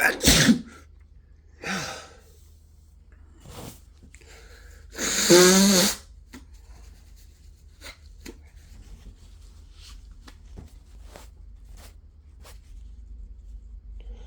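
A person with the flu sneezing: a sharp sneeze right at the start, shorter bursts of breath, then one big, loud voiced sneeze about five seconds in. Only faint short ticks follow.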